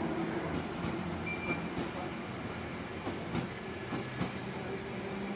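Bakerloo line 1972 Stock tube train running slowly along the platform: a steady rumble with a few wheel clicks over rail joints.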